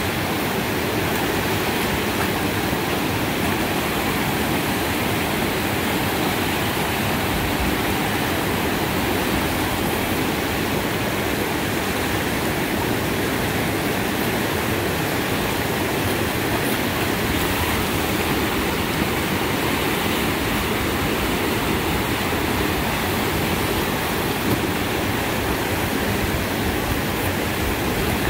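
Fast river rapids rushing steadily, a continuous even whitewater noise with no breaks.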